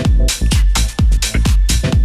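Electronic dance music mixed from vinyl on DJ turntables, with a deep kick drum on every beat, about two a second, and hi-hats ticking between the kicks.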